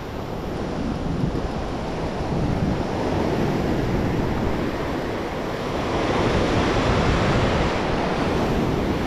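Ocean surf washing and foaming through the shallows, a steady rushing noise with wind buffeting the microphone; the wash swells louder about six seconds in.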